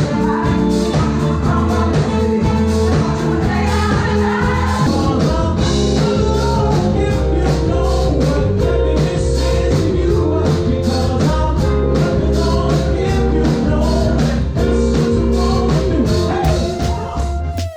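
Live band playing an upbeat rhythm-and-blues song with a lead singer and a drum kit keeping a steady beat.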